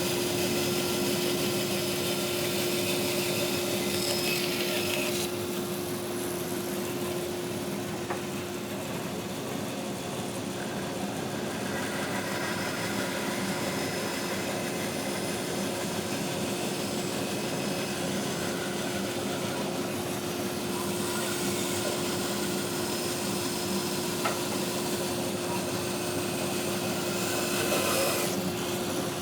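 Bandsaw running with a 1/2-inch 4-tooth blade, cutting through a thick block of dry wood freehand. A steady motor hum runs under the cutting noise, which swells and eases as the wood is fed.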